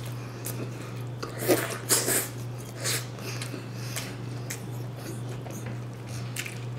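Close-up mouth sounds of chewing a Popeyes spicy fried chicken sandwich: several sharp crunches and smacks between about one and a half and three seconds in, then softer chewing, over a steady low hum.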